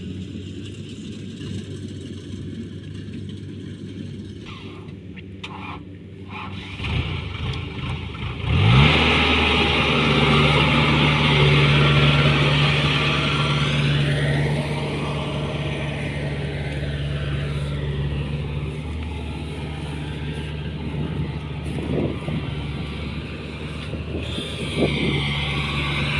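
Diesel engine of a tracked farm machine idling, then revving up sharply about eight or nine seconds in and running on at high speed with a loud steady drone and a hiss of working machinery.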